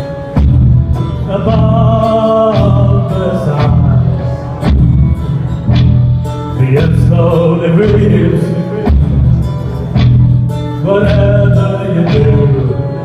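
Live band playing a song: electric and acoustic guitars, bass and drums with violin and cello, over a steady drum beat.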